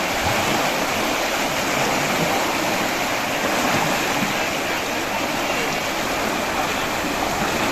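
Floodwater rushing through a sluice gate, a steady, even rush of water.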